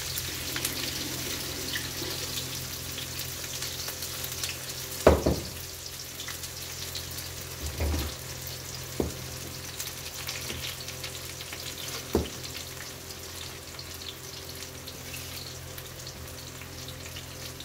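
Chopped onion and cumin frying in hot oil in a wok, a steady sizzle. A few sharp clanks of steel utensils and bowls cut through it, the loudest about five seconds in.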